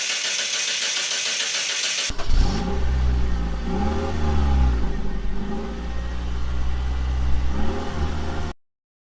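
Car engine revved up and back down a few times, after about two seconds of steady hiss; the sound cuts off abruptly near the end.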